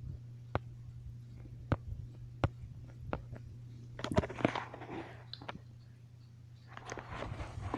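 Hampton Bay Littleton ceiling fan running on medium speed: a steady low hum, with several sharp clicks in the first few seconds and some rustling later on.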